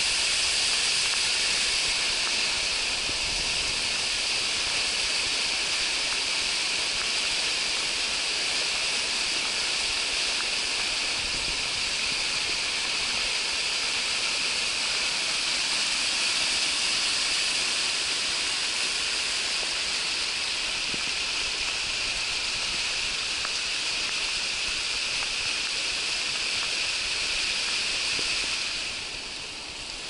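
Rain-swollen river rushing fast over a shallow, debris-strewn bed: a steady, hissing rush of white water. It drops away somewhat near the end.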